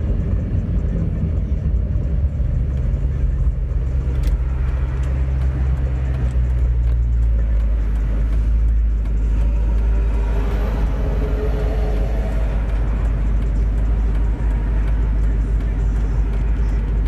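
2001 Ford Mustang running through its new exhaust: a steady, deep low rumble. Its owner calls it real smooth now that the oversized exhaust pipes holding back its power have been replaced.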